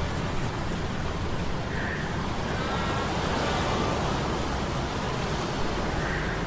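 Steady rushing noise of a sea storm's surf and wind over a low, steady hum of metal gears. A few short, high sliding tones come and go over the noise.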